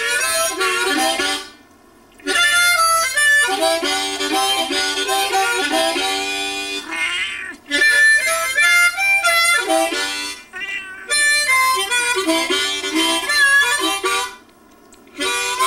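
Harmonica played in short blues phrases with brief pauses between them, and a cat yowling along in falling wails.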